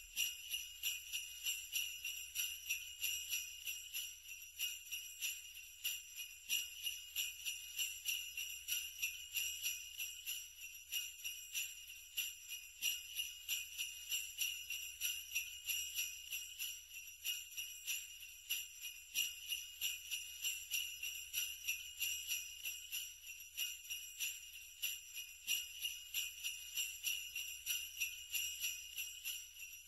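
Sleigh bells jingling, shaken in a steady rhythm.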